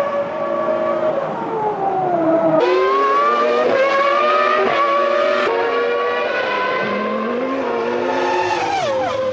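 Formula One car V10 engines at high revs, the note climbing and dropping with gear changes. The sound changes abruptly twice, and the pitch falls steeply near the end as the car brakes and downshifts.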